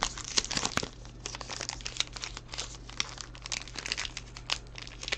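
Hands crinkling and tearing open a trading card pack's wrapper, a run of irregular crackles.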